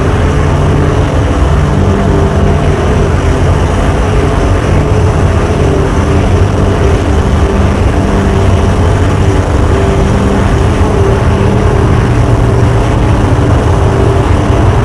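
Loud, unbroken amplified noise from contact microphones: a calculator scraped back and forth on sandpaper and an angle grinder cutting through a rubber car tire, heard as a dense harsh rasp over a steady low hum.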